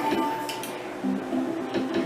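Electronic slot machine playing its game music, a run of short plucked-guitar-like notes, with a held beep that stops about half a second in.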